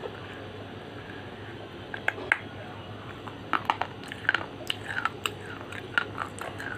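Teeth biting and crunching a piece of edible slate close to the microphone: a couple of sharp crunches about two seconds in, then a quick run of crisp crunching bites from about halfway.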